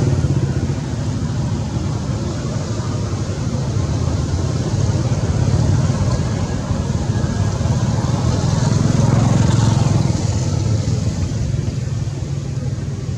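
A motor vehicle's engine running steadily, growing louder near the middle and easing off again.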